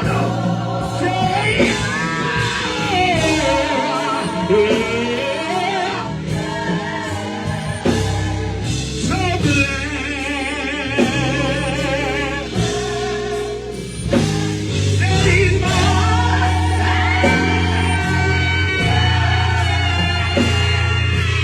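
Live gospel music: voices singing long, ornamented lines with vibrato over a band with steady bass notes.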